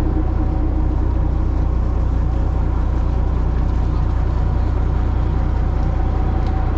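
Boat engine running steadily underway, a loud, even low drone with a steady tone over it.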